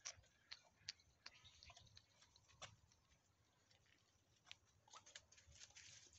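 Near silence with faint, scattered clicks and crackles, about a dozen spread irregularly.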